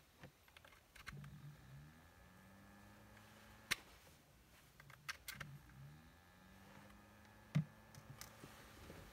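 Sharp plastic clicks as a hand handles a USB-powered mosquito trap lamp and switches it on, two of them louder and a little under four seconds apart. A faint steady hum runs underneath.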